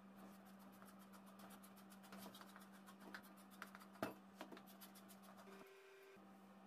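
Faint crackling of a knife slicing through stacked sheets of baklava yufka (phyllo) dough, with one sharp tap about four seconds in, over a steady electrical hum.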